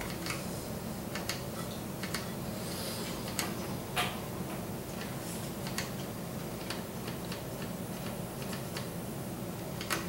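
Sage EAS ENDEC front-panel buttons being pressed: about a dozen sharp plastic clicks at an irregular pace, the loudest about four seconds in, over a steady low hum.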